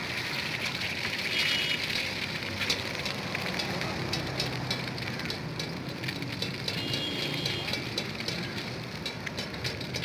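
Egg frying in hot oil on a large flat iron griddle, sizzling steadily with frequent sharp crackles and spatters, louder about a second in. Now and then a metal spatula scrapes across the griddle.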